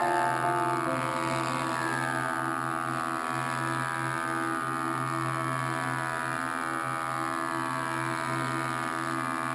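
Grizzly G5851 24-inch planer running with a steady hum while boards feed through it, the pitch sagging slightly under the cut.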